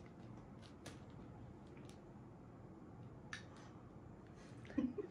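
Quiet room tone with a few scattered light clicks and taps, and a brief murmur of a voice near the end.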